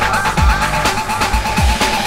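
Electronic dance music with a steady four-on-the-floor kick drum and a repeating synth line.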